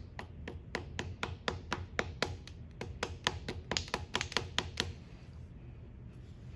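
Small hammer tapping rapidly on a stuck block of a Kent milling machine's quill power-feed mechanism to knock it loose: about twenty light, sharp taps at roughly four a second, stopping near five seconds in.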